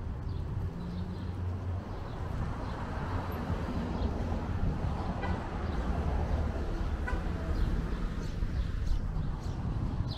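Street ambience: a steady rumble of traffic on the avenue, with small birds chirping in the trees.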